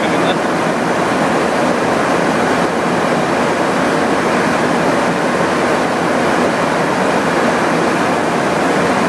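Steady, even rushing noise of airflow and engines inside a KC-135 tanker in flight.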